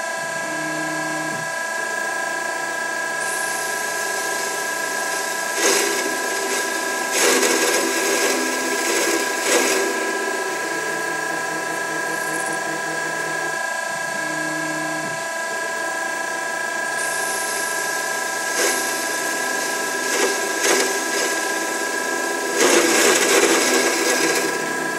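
Denford Orac CNC lathe running with a steady machine whine as a narrow HSS parting blade cuts cooling fins into a spinning EN16T steel cylinder. A low hum comes and goes several times, and bursts of louder cutting noise come several times, the longest near the end.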